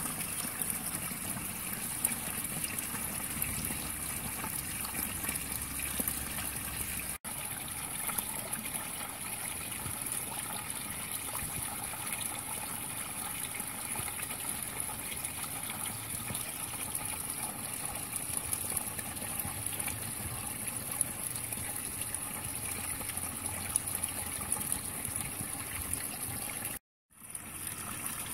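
Water trickling and splashing steadily into a garden goldfish pond, a continuous even rush. The sound drops out briefly twice, about 7 seconds in and near the end.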